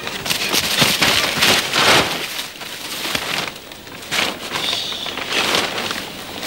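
Rustling and scuffling of people scrambling down and pressing against a large sack of charcoal, in several irregular noisy bursts, the loudest in the first two seconds.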